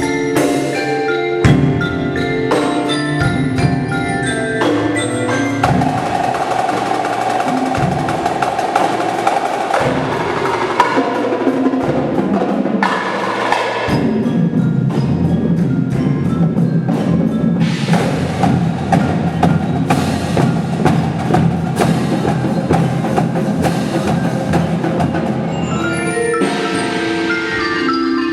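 Indoor winter drumline performing: pit mallet instruments play ringing pitched lines over drums and sharp clicking hits. About halfway through the music shifts to a fuller passage with a lower sustained layer underneath.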